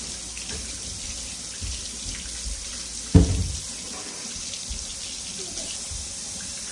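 Steady rushing, hissing water sound, with one loud thump about three seconds in.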